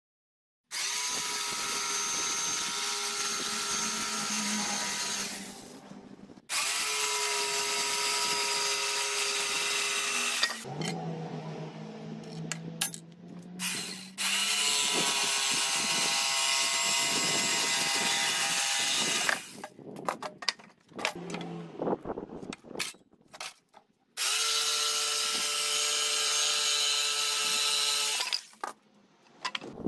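Corded electric jigsaw cutting pallet boards. It runs in four cuts of about four to five seconds each, with short knocks and clatter from the boards being handled in the pauses between.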